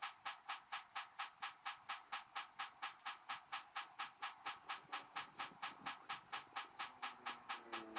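A steady run of light, evenly spaced clicks, about five a second.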